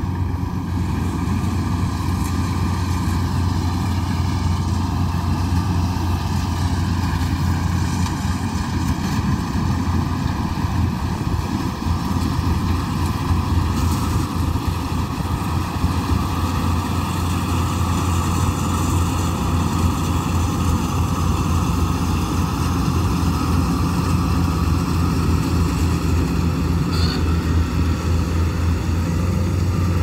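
Kubota DC-95 combine harvester working through ripe rice, its diesel engine and threshing machinery running at a steady, constant low hum.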